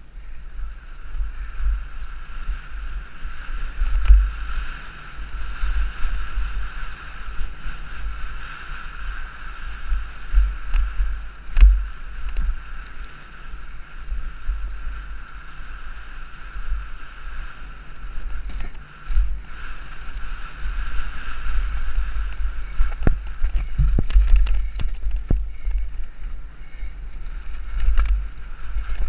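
Mountain bike descending a dirt singletrack, heard from a helmet-mounted camera: wind buffets the microphone with a low rumble that rises and falls, over a steady hiss of the ride. Sharp clicks and knocks come several times as the bike clatters over bumps, most often in the last third.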